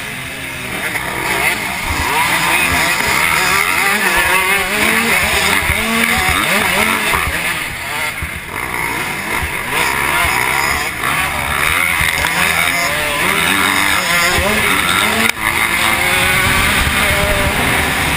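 Motocross bike engines revving hard and falling back over and over as the rider shifts and throttles through the pack, the onboard bike loudest, with other dirt bikes close by.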